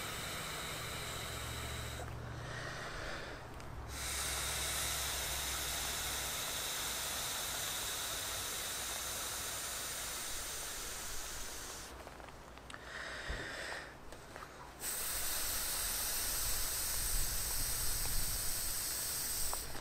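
A man blowing long, full breaths by mouth into the inflation valve of an inflatable down-free insulated vest: a steady airy hiss of breath rushing into the valve. There are three long blows, with short pauses for breath about two seconds and about twelve seconds in, filling the vest's air cells.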